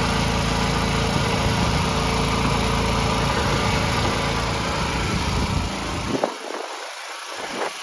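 Small gas engine of a truck-mounted pressure washer running steadily; about six seconds in, the sound drops and the low rumble cuts out.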